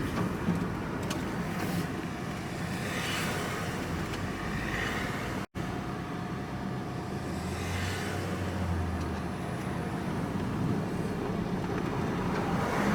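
Steady engine hum and road noise of a vehicle being driven, heard from inside the cab. The sound drops out completely for an instant about five and a half seconds in.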